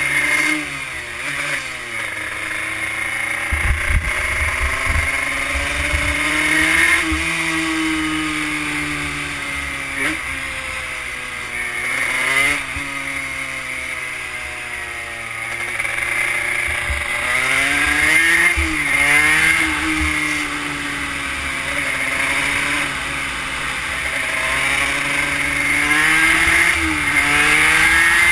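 Honda CR80 two-stroke single-cylinder engine in a Yamaha YSR50 mini bike, running hard on a lap. Its pitch climbs and drops again and again as the rider accelerates, shifts and slows, with wind rumbling on the microphone now and then.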